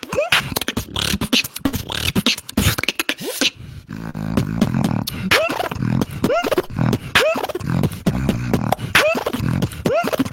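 Beatboxer performing a battle routine: punchy kick and snare sounds over deep bass hums, with repeated swooping pitch sweeps roughly once a second. It drops out briefly about three and a half seconds in.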